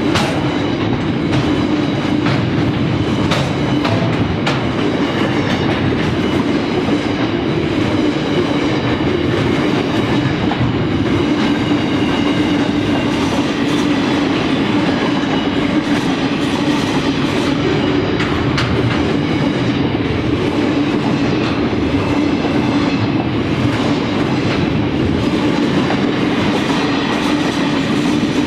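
Container flat wagons of a long intermodal freight train rolling past: a steady, loud rumble of steel wheels on rail, with scattered sharp clicks from the wheels over rail joints.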